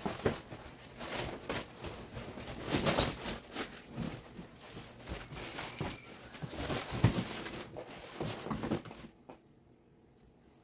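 Cardboard shipping box being pulled and torn off a steel scooter crate: irregular scraping, crinkling and knocks that stop about nine seconds in.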